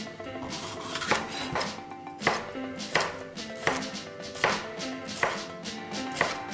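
Chef's knife slicing a red bell pepper into thin strips and knocking on a wooden cutting board, one stroke about every two-thirds of a second.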